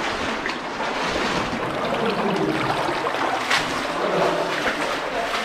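Underground cave river water rushing steadily, with a few small splashes.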